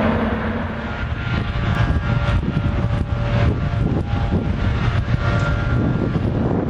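Wind gusting on the microphone over a steady low rumble from a distant diesel commuter train, with a few faint steady tones above it.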